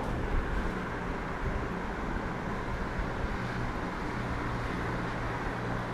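Steady background noise with a low, even hum; no distinct event stands out.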